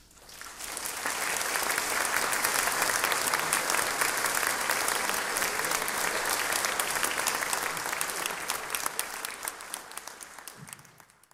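Theatre audience applauding: a dense clapping that swells up about a second in, holds steady, and dies away near the end.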